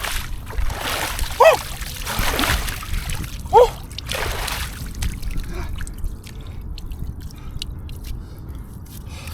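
Icy water splashing around a person in a cold-plunge hole cut in the ice, with two short, loud yelps from the cold, about one and a half and three and a half seconds in. After about five seconds it settles to small drips and light splashes.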